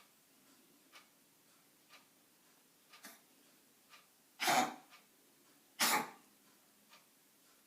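A pet coughing: two harsh coughs about a second and a half apart, with a clock ticking faintly about once a second.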